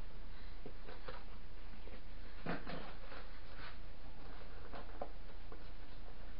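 Fabric dog boot being worked onto a dog's paw: faint rustling and a few small clicks and scuffs, the sharpest about two and a half seconds in, over a steady low hum.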